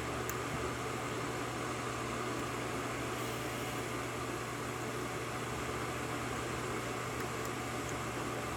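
Steady electrical hum and hiss of background room noise. Faintly, a couple of tiny ticks of a pick working the pins of a 5-pin Yale pin-tumbler lock can be heard, once near the start and once near the end.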